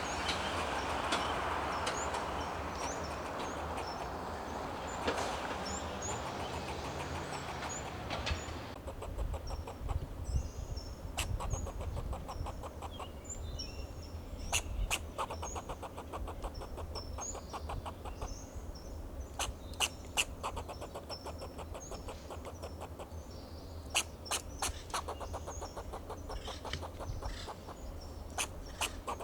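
Fox squirrel giving alarm barks: short, sharp calls in scattered clusters. A steady rushing noise underneath cuts off suddenly about nine seconds in.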